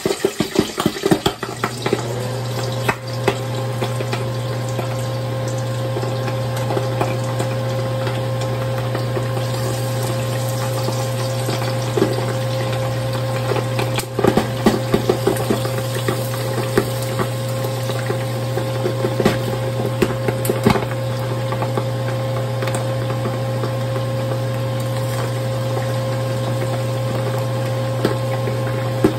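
Pork deep-frying in hot oil in a lidded stainless saucepan: continuous crackling and spitting, with a louder flurry of pops about 14 seconds in when the lid is lifted. A steady low hum runs under it.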